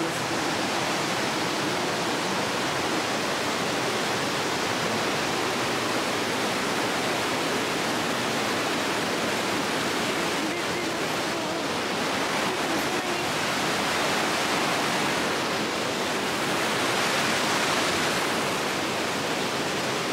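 Steady rushing of a river or falls in the gorge, with no break in it, swelling slightly near the end.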